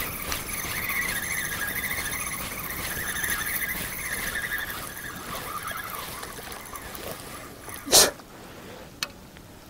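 Gusty wind blowing across the microphone, with a wavering high whistle that fades over several seconds. About eight seconds in comes one sharp, loud knock of hard gear, and a lighter click about a second later.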